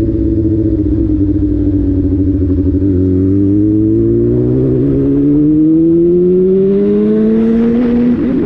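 Vehicle engine running loud under acceleration: its pitch dips slightly, then climbs steadily for about five seconds, with a brief break near the end.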